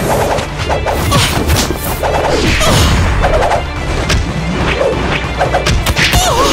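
Combat sound effects for a puppet fight: a rapid, dense run of crashes and whacking blows over background music.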